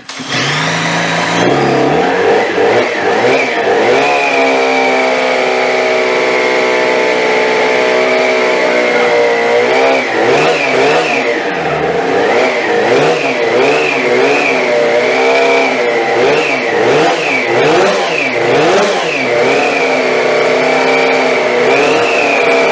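Custom 3D-printed 100cc two-stroke fuel-injected race engine catching on a first start and running. It holds a steady speed, is then revved again and again with its pitch rising and falling on each blip, and settles back to a steady speed near the end.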